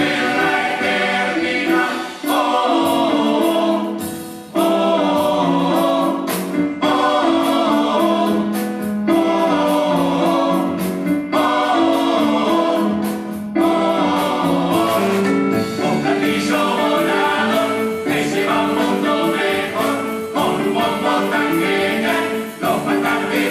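A Uruguayan carnival murga chorus singing a despedida, the farewell song, in full-voiced harmony, holding chords that change every second or so.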